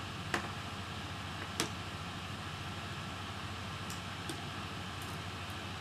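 Light clicks and ticks of small tools and plastic laptop parts being handled during disassembly, two sharp ones in the first two seconds and a few faint ones later, over a steady hiss and hum.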